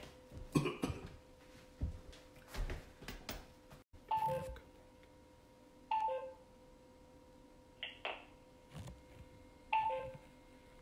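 A short two-pitch tone that repeats four times, about every two seconds, from about four seconds in, over a faint steady hum. Before it come a few short knocks and handling noises.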